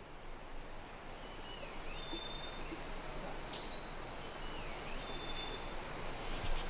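Outdoor nature ambience: a steady high insect drone with short bird calls, a swooping call that dips and rises every few seconds and a brighter chirp about halfway through and again at the end.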